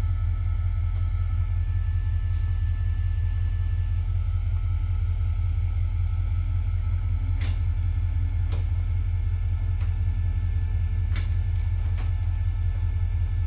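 Steady low rumble, with a few faint clicks about halfway through and again near the end.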